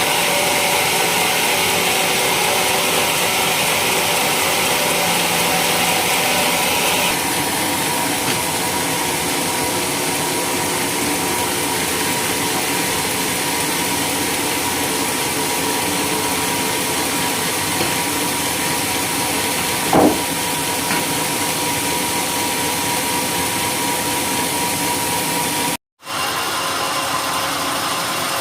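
Homemade sawmill running steadily while sawing a coconut-palm trunk: a steady machine hum with a hiss from the blade that eases off about seven seconds in. A single knock comes about twenty seconds in, and the sound cuts out for a moment near the end.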